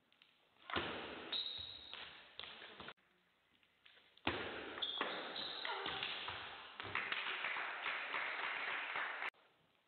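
Table tennis rally: the celluloid ball clicking off the bats and the table, echoing in a large hall. The sound comes in two stretches, the second one longer, and each cuts off suddenly.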